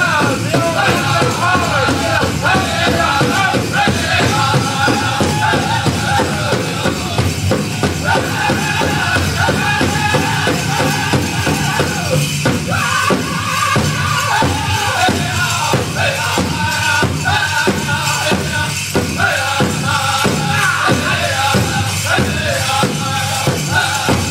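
Powwow drum group singing in high voices over a steady beat on a large powwow drum, about two beats a second.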